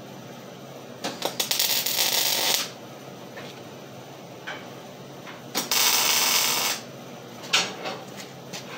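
Electric welding arc crackling and hissing on steel in two short bursts of about a second and a half and a second, as tack welds are laid. A couple of sharp metal knocks follow near the end.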